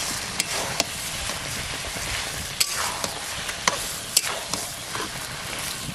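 Masala-coated chicken sizzling in a wok while a spatula stirs and turns it, with a steady frying hiss broken by scattered scrapes and clicks of the spatula against the pan.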